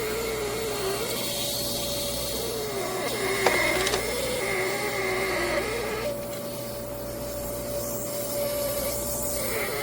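COWSAR countertop nugget ice maker running: a steady machine hum with a whine that wavers up and down in pitch, and a sharp click about three and a half seconds in.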